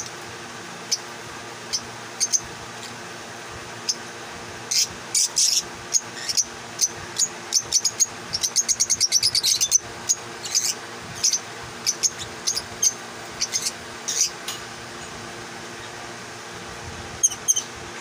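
Caged lovebirds calling: short, sharp, high chirps, a few at first, then many in quick succession from about four seconds in, with a fast chattering run near the middle, and a few more near the end. A steady low hum runs underneath.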